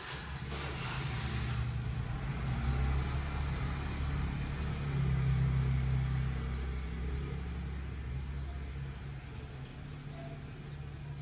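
An engine running with a steady low hum that comes in suddenly, swells through the middle and eases off, with short high chirps every second or so.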